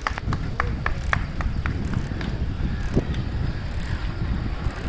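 Wind buffeting a phone microphone on a moving bicycle, a steady low rumble, with a quick run of short sharp taps in the first two seconds.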